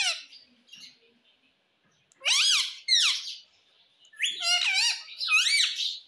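Indian ringneck parakeet calling: four short, shrill calls that swoop up and down in pitch, in two pairs about two and four seconds in.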